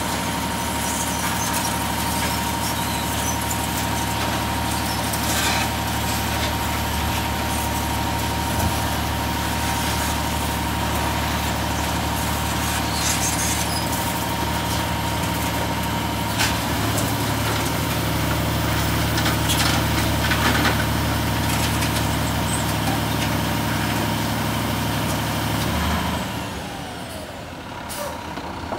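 Front-loader garbage truck's diesel engine running as the truck manoeuvres, with a steady high whine. It pulls harder for a few seconds past the middle, then eases off near the end. A few short air-brake hisses are heard.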